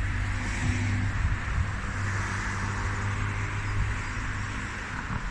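Road traffic: a nearby vehicle engine hums steadily over a wash of road noise, easing off near the end.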